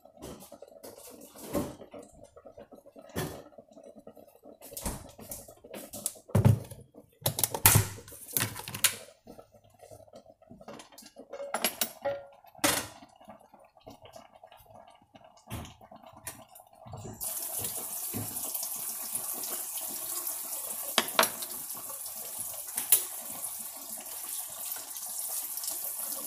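Scattered clicks and knocks of things being handled, then about two-thirds of the way through a kitchen tap is turned on and water runs steadily into the sink.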